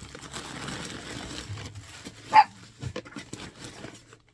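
Plastic mailer bag crinkling as it is torn open and emptied, with one short, sharp dog bark about two seconds in, the loudest sound, followed by a few light knocks.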